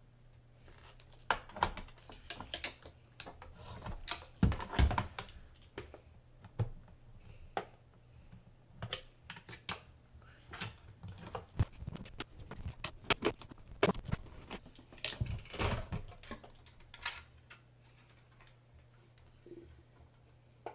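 Irregular clicks, taps and knocks of hard plastic and metal parts being handled and moved during the teardown of a hoverboard, busy at first and fewer near the end, over a steady low hum.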